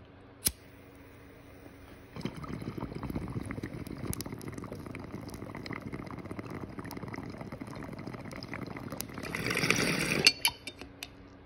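A lighter clicks once, then water bubbles steadily through a glass bong as smoke is drawn for about eight seconds. Near the end it swells into a louder, hissier rush as the bowl is pulled to clear the chamber, then stops sharply, followed by a few light glass clicks.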